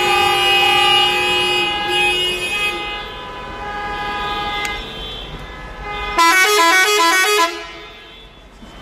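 Car horn sounding loud held notes that change pitch a few times. About six seconds in it plays a quick run of rapidly changing notes, like a multi-tone musical horn.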